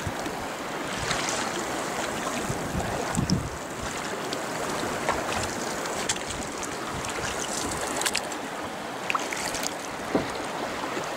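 Lake water splashing and lapping against the hull of a moving Perception Rambler kayak, with scattered drips and small splashes and wind buffeting the microphone.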